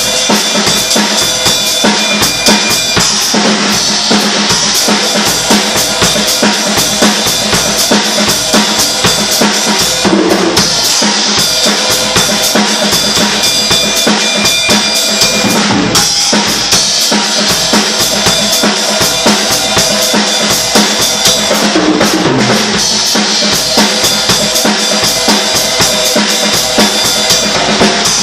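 Drum kit playing a steady groove: bass drum, snare and cymbals, with short fills about a third of the way in, around the middle and near three quarters.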